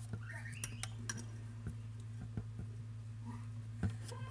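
Guinea pigs in their enclosure: a short rising squeak near the start, then scattered light clicks and taps, with a sharper knock near the end. A steady low hum lies under it all.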